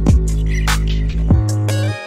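Music with a heavy, sustained bass line and regular drum hits; it cuts off suddenly near the end.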